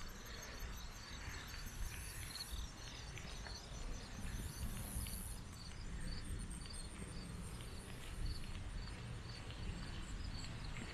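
Insects chirping in a steady, regular rhythm, with a higher insect buzz that comes and goes, over a low outdoor rumble.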